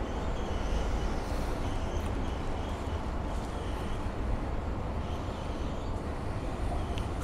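Steady low rumble and hiss of city ambience, with no distinct events standing out.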